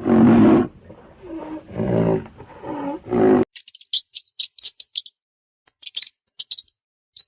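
An animal roaring and growling in several loud, rough calls for about three and a half seconds. These stop abruptly, and a run of short, high, raspy clicks and chirps follows in quick irregular bursts.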